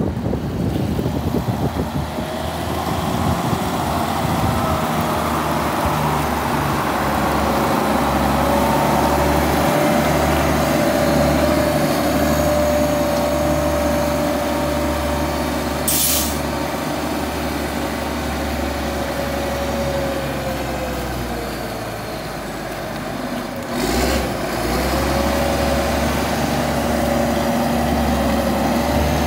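Caterpillar 140H motor grader running and driving, a steady low diesel drone with a whine over it. The whine sags and the engine eases off about two-thirds of the way through, then picks up again after a short burst; a brief sharp hiss comes about halfway.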